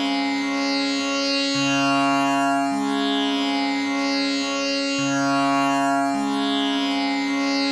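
Tanpura drone tuned to C sharp, its strings plucked in an unbroken cycle of about three and a half seconds. A held upper Sa rings throughout while a low Sa and a Pa sound in turn, with the buzzing jawari shimmer sweeping through the overtones.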